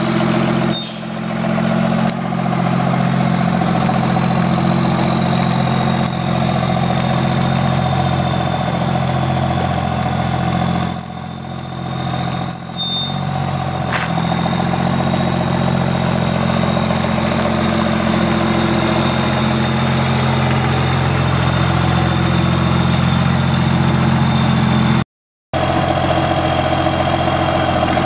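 Cummins six-cylinder diesel of a 1999 Ottawa Commando yard truck idling steadily, with a thin high whine over it. The sound breaks off for about half a second near the end.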